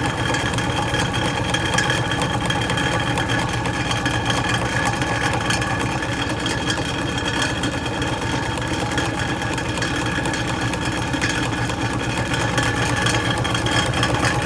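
Norge Rollator belt-drive refrigeration unit, its electric motor and compressor running steadily with a constant hum. Much of the noise comes from the unit sitting without its suspension springs, which the owner is sure of.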